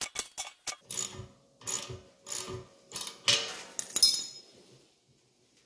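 Brass threaded fittings being screwed together by hand on a propane tank valve: a run of quick small metal clicks, then several short scraping rasps of the threads, which stop about five seconds in.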